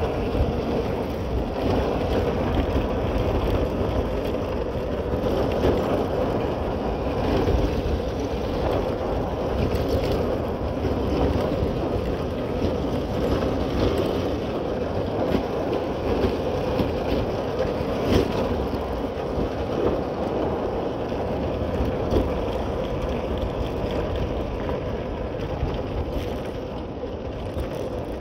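Motorcycle riding at a steady pace: its engine runs evenly, mixed with wind rushing over the microphone.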